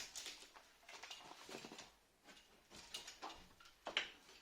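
Faint scattered taps, clicks and rustling from things being handled, with a sharper tap about four seconds in.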